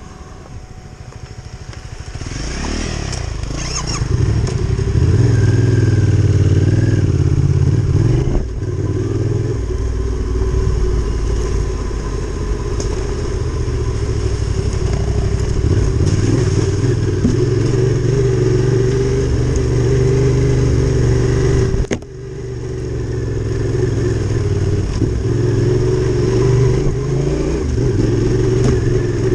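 Adventure motorcycle engine pulling away and rising in revs over the first few seconds, then running steadily along the trail. The sound dips briefly twice as the throttle is shut off, the second time sharply.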